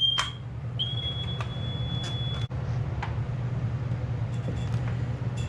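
Smoke detector alarm beeping: a short high beep right at the start, then one longer, fainter steady beep from about one to two and a half seconds in that cuts off suddenly. Under it runs a steady low hum with a few light clicks.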